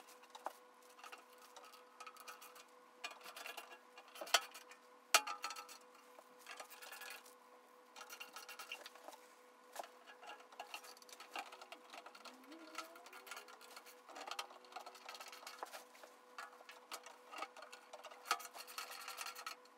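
Irregular small clicks, taps and scrapes of hands handling and fitting parts on a painted sheet-metal welder case, with two sharper clicks about four and five seconds in. A faint steady tone runs underneath.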